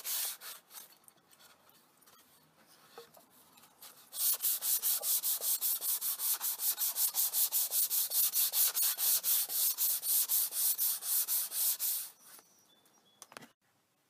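Sandpaper rubbed by hand across a wooden board in quick back-and-forth strokes, about five a second. The strokes thin out and go soft for a few seconds at first, return strongly about four seconds in, and stop about twelve seconds in. A single short knock near the end.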